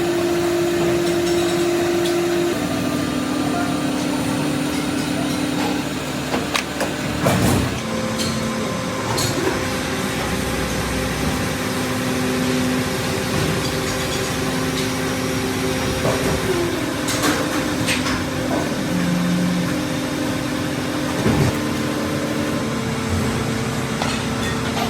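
Factory machinery running with a steady, multi-toned hum whose pitch steps now and then, broken by a few sharp knocks.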